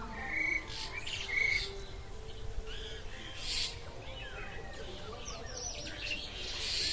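Common mynas calling: a string of short whistled notes, harsh squawks and down-sliding chatter, one call after another.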